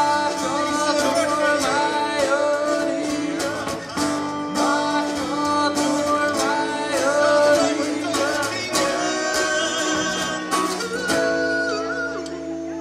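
A live band performs a song: a male voice sings a wavering melody over strummed acoustic guitars, keyboard and drums. About eleven seconds in, the singing stops and a held chord rings on, fading away.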